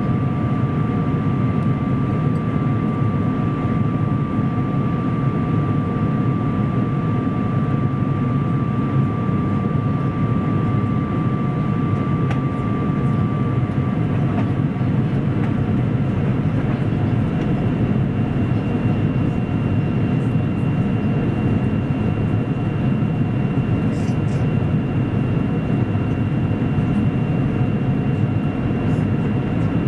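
Steady cabin roar of an Airbus A350 on approach, heard from a window seat beside its Rolls-Royce Trent XWB engine: engine and airflow noise, with a thin whine. The whine fades about halfway through, and a higher one comes in a few seconds later.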